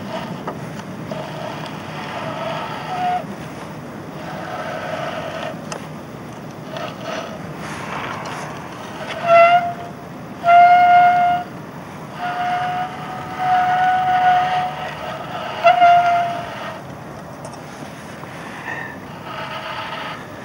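Steady wind and sea noise, with a series of held, horn-like tones that come and go and are loudest in the middle, each lasting up to about a second.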